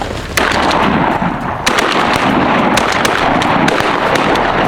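Several shotguns firing a rapid, overlapping volley of many shots at ducks, starting about half a second in and thinning out near the end.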